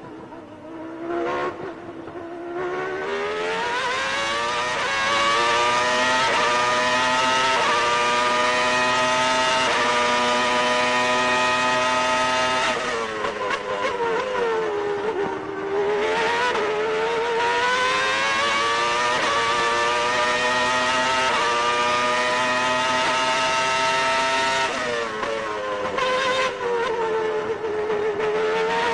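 Onboard sound of a 1995 McLaren Mercedes Formula 1 car's 3.0-litre V10 engine at racing speed. It climbs through the gears and holds a high, steady howl on the straights. Twice, about 13 s and about 25 s in, the pitch drops sharply as the car brakes and downshifts for a corner, then climbs again under full throttle.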